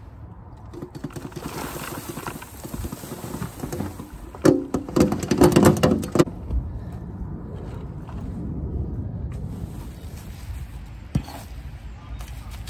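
Wheelbarrow of wood chips rolling and rustling along a wood-chip path, then a loud rattling clatter from about four and a half to six seconds in as the load is tipped out. After that comes softer scraping as a rake spreads the chips, with a single knock near the end.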